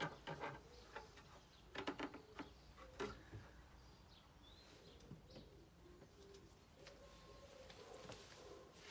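A few faint plastic clicks and knocks as a van's rear light cluster is worked loose and pulled out by hand, all in the first few seconds. Near the end a bird coos faintly in the background.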